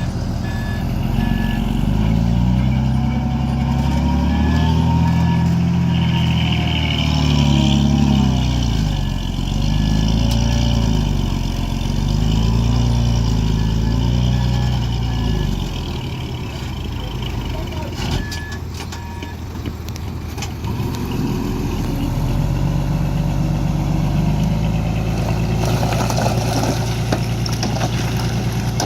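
Diesel dump truck engines running and revving up and down, with a reversing alarm beeping in short runs several times.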